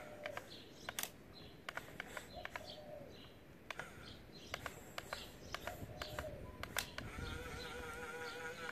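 Small electric motors and gears of an RC excavator working its arm and claw, with many sharp clicks and a wavering whine that is strongest over the last couple of seconds. A bird calls a few times in the background.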